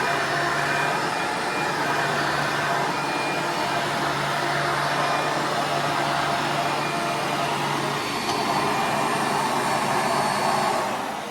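Hoover Encore upright vacuum cleaner running steadily at full power. Near the end it begins to wind down.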